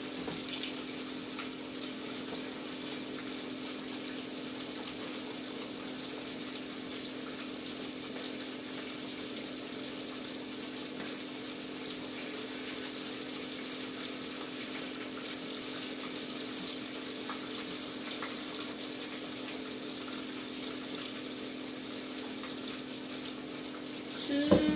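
Fish in gravy simmering in a skillet on the stove, a steady hiss over a constant low hum.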